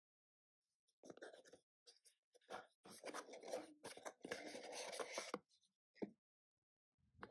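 Cardboard packaging being handled: a paperboard insert scraping and rustling against the box as it is lifted out, starting about a second in. A short sharp knock follows near the six-second mark.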